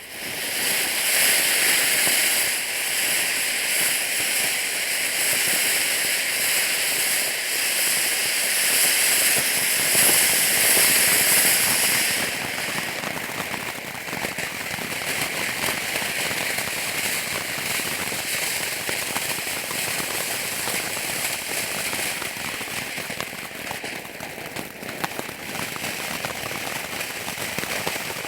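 Firework fountain spraying sparks: it starts suddenly with a loud hiss full of fine crackles. About twelve seconds in the hiss drops away, leaving a steady dense crackling.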